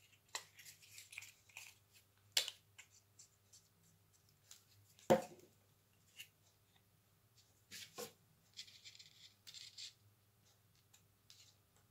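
Hands handling a glue stick and folded coloured paper: scattered small clicks and rustles, with one sharp knock about five seconds in as the glue stick is set down on the table. Near the end comes a short rustling as the accordion-folded paper is pressed onto the card.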